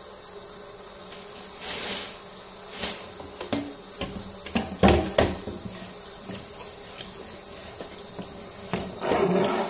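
Kitchen handling at a stainless steel sink: a scrape about two seconds in, then a few sharp knocks around five seconds in as a plastic cutting board is lifted and set against the sink, over a steady faint high hiss. Tap water starts running into the sink near the end.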